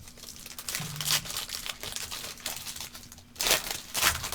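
A trading card pack's wrapper being torn open and crinkled: a run of short rustles, with louder rips about a second in and twice near the end.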